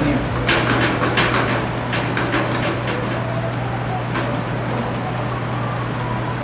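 Spatula stirring and scraping choux paste around a frying pan while it cooks over a gas flame, with quick scrapes in the first couple of seconds and fewer after, over a steady low hum.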